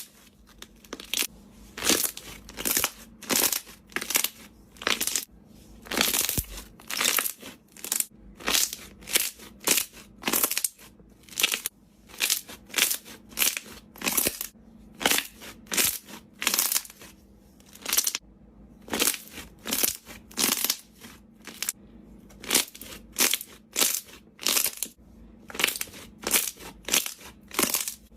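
Slime being squeezed and pressed, giving short crackly squishes and pops about one or two times a second.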